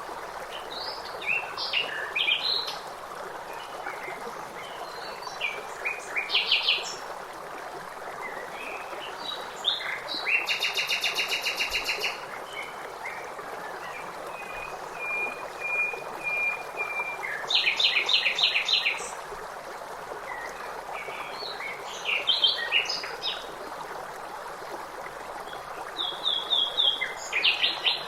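Songbirds singing in short phrases every few seconds, including rapid trills and a run of even whistled notes, over the steady rush of flowing stream water.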